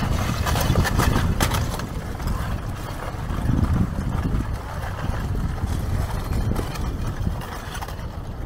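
Wind rumbling on the microphone, with a cluster of sharp crackles and clinks about a second in from the front of a blocky lava flow as its cooling crust cracks and loose blocks shift while it advances.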